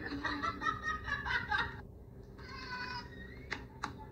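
A domestic cat meows once, a short call that rises in pitch at its end, about halfway through, after a stretch of voices. A few sharp clicks follow.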